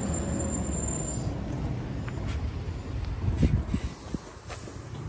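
City bus drawing up at the stop, its engine rumbling low. In the second half come a few short hisses and knocks as it halts and its doors open.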